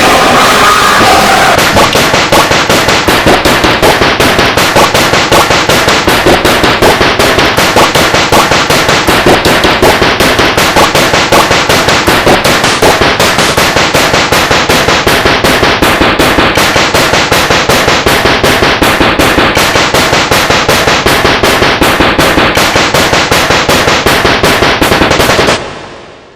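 YTPMV remix music: a short clip chopped and looped into a very loud, dense track with a fast, even beat of about three pulses a second. It drops away near the end.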